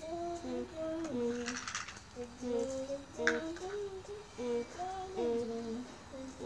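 A high voice singing a simple tune, holding each note and stepping up and down in pitch.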